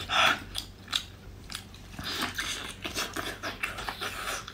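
Gloved hands tearing apart hot cooked shellfish, with small cracks and crackles of shell and flesh. A short puff of breath is blown on the hot food at the start.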